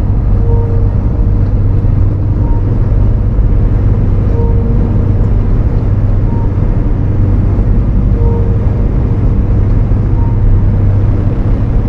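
Steady low road and engine noise of a car cruising on a highway, with faint short tones recurring every couple of seconds.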